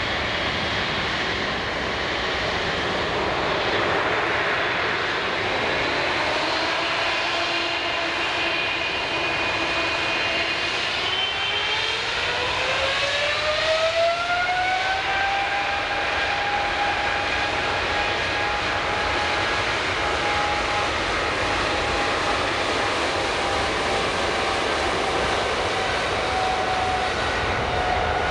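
Boeing 777-300ER's GE90-115B turbofan engines spooling up for takeoff. Steady engine whine over jet noise rises in pitch between about ten and fifteen seconds in, then holds at a higher pitch at takeoff thrust.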